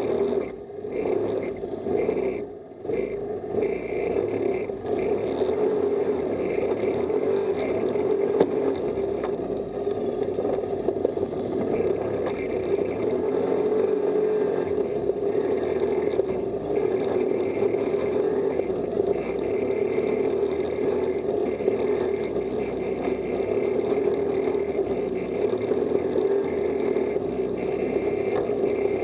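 Off-road buggy's engine running steadily as it is driven along a dirt track, picked up by a camera mounted on the buggy itself.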